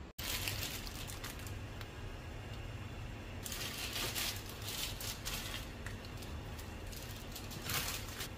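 Water boiling hard in a pan, a steady bubbling and crackling. Near the end a block of dried instant noodles goes into the boiling water, with a brief louder splash.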